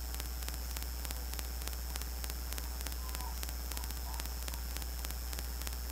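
Steady electrical mains hum with static hiss, and faint even clicking running through it: the background noise of the recording setup, with no speech.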